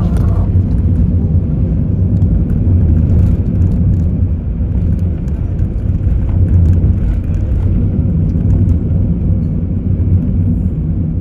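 Steady low rumble of a vehicle on the move, with a few faint ticks and rattles.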